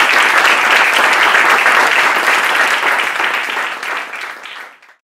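Audience applauding, dense steady clapping that fades out near the end.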